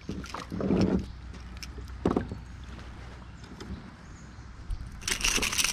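A small smallmouth bass being landed by hand beside a kayak: water splashing and handling knocks. Near the end comes a burst of rapid clicking and rattling.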